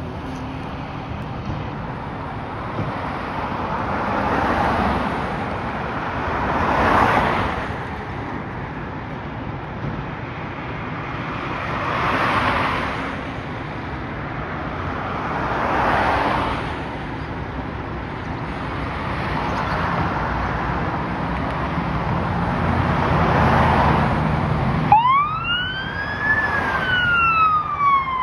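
Road traffic passing in a series of swells over a low, steady engine rumble. About three seconds before the end, the fire ladder truck's siren starts: one wail that rises quickly, then slowly falls.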